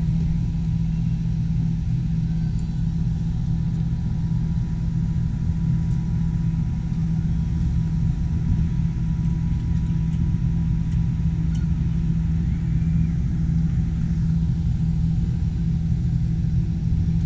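Steady low machine hum inside an enclosed Ferris wheel gondola as the wheel turns, with a faint thin high tone held above it.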